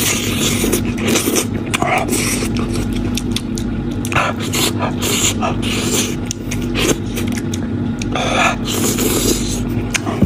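Close-up eating sounds of a person biting and sucking saucy meat off a bone: wet chewing, lip smacks and slurps in quick irregular bursts, over a steady low hum.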